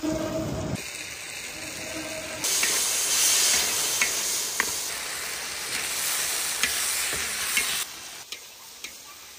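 Beef and peppers stir-frying in a wok over a wood fire: a loud, steady sizzle with the spatula scraping and clicking against the wok. The sizzle grows loud about two and a half seconds in and drops back near the end.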